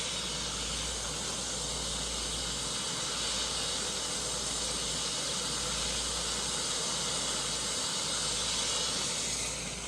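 A steady, loud hiss like escaping steam, used as a monster sound effect. It holds evenly and starts to tail off right at the end.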